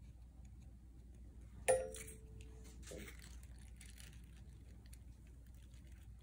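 A sharp click about two seconds in, followed by a short ring, then soft rustling of tissue paper and faint scratching of a felt-tip marker drawing on a tissue-covered egg-carton craft.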